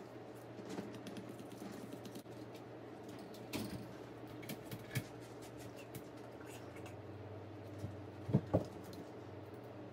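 Light, irregular clicks and taps of small parts and hand tools being handled during the strip-down of a cordless impact driver, with two sharper knocks in quick succession near the end, over a low steady hum.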